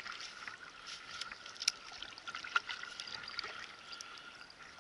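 Water lapping and trickling against a kayak hull, with scattered light ticks.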